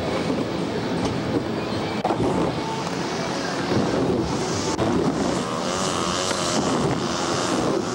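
Background music: a dense, steady track with wavering pitched notes in its second half.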